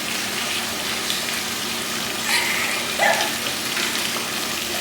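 Steady rush of running or falling water, with a couple of brief faint sounds about two and three seconds in.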